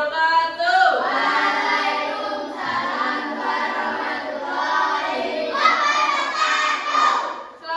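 A group of children singing a song together, in long held notes that rise and fall in pitch.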